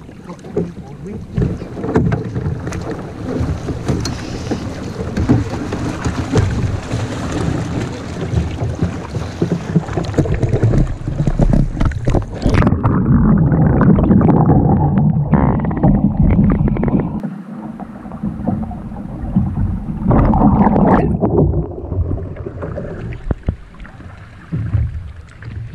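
A 12-foot canoe capsizing. Water sloshes and splashes, then about halfway through the sound suddenly turns dull and muffled as the canoe rolls over into the water. Heavy splashing and thrashing in the water follow.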